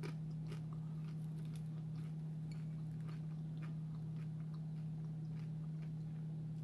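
Someone chewing a crunchy fried seafood egg roll: irregular crisp crunches and small mouth clicks over a steady low hum.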